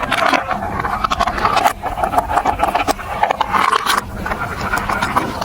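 Marbles rolling and rattling down a plastic building-block marble run track, a steady rumble with many quick clicks as they knock against the track.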